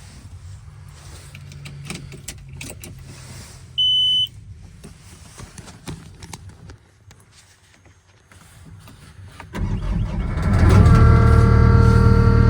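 Clicks of the key and switches, then a single short warning beep as the ignition comes on. Near the end the tracked loader's Kubota diesel cranks, catches and settles into a steady run on a cold start.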